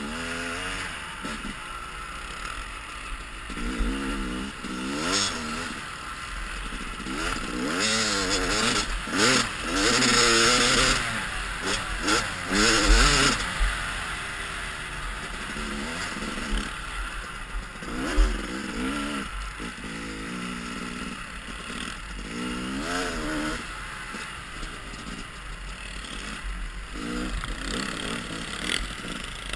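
Yamaha dirt bike engine revving up and down as the rider accelerates and eases off, heard close from the helmet, with wind rushing over the microphone that is loudest around ten to thirteen seconds in.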